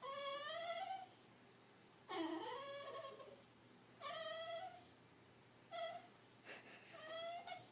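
Beagle making a series of five high, squeaky whines, each under about a second and several rising slightly in pitch, with short pauses between. This is her way of asking for food instead of barking.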